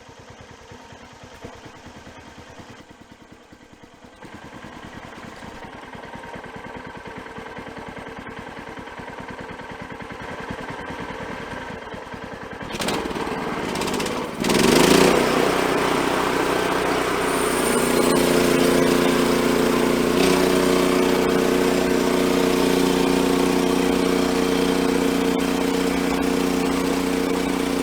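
Gasoline engine of a portable band sawmill, running low at first and slowly growing louder, then revving up with a rising whine about 15 seconds in and holding a loud, steady full-throttle note. A couple of sharp knocks come just before the rev-up.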